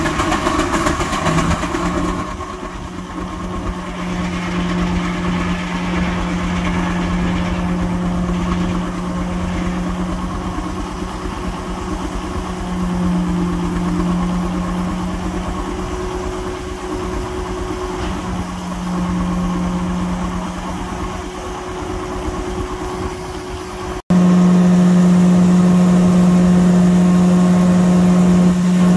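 George White steam engine running, belted to a Waterous circular sawmill, the machinery giving a steady hum. About 24 seconds in the sound jumps abruptly to a louder, steadier hum.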